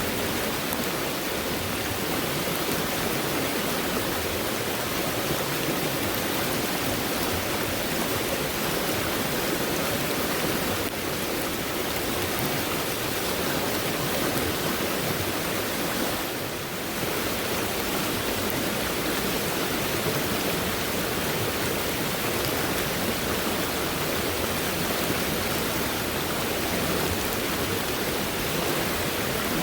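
Fast-moving stream, swollen by heavy rainfall, with its water rushing steadily. The sound dips briefly a little past halfway.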